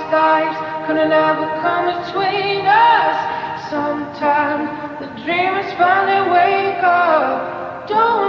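Background pop song with a high sung vocal line held and bent across long notes.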